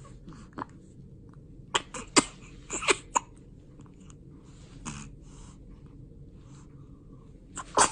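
A person hiccupping repeatedly: short, sharp catches at irregular intervals, the loudest about two seconds in, near three seconds and near the end.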